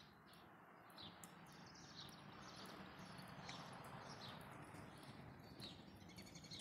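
Faint birdsong: many short, high chirps repeating quickly, over a soft steady outdoor hiss that swells slightly midway.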